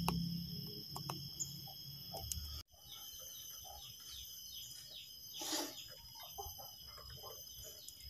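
Faint outdoor ambience of birds chirping. A low hum in the first few seconds cuts off abruptly, and there is a brief rustle a little past halfway.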